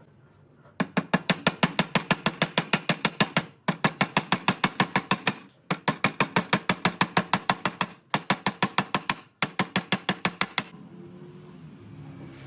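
A rapid, even series of sharp knocks, about five a second, in four runs with brief pauses between them.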